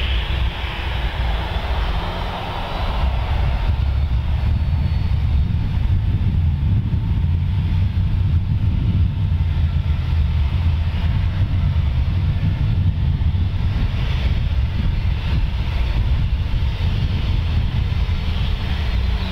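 Boeing 737-800's CFM56 jet engines running at low power as the airliner rolls slowly along the runway after landing: a steady low rumble, with a brighter jet hiss that fades over the first few seconds.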